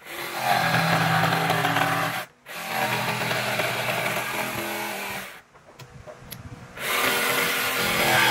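Jigsaw cutting through pallet-wood boards along a curve, running in three spells broken by two short stops, the longer one about five and a half seconds in.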